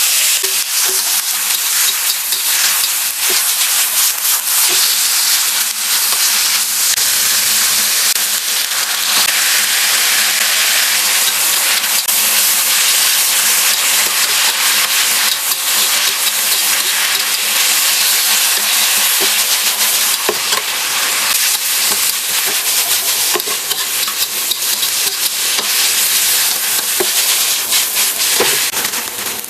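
Food sizzling steadily as it is stir-fried in a hot pan, with a spatula stirring and lightly clicking against the pan now and then.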